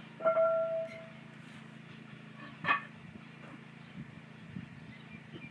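A bat hitting a ball: a sharp crack with a short metallic ring, then a second sharp knock about two and a half seconds later.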